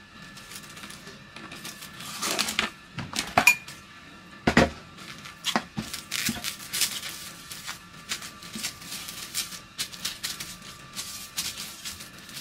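Plastic cling film being pulled off its roll, torn, and crinkled as it is pressed around a halved watermelon: a run of sharp crackles and rustles, loudest in a few snaps a couple of seconds in.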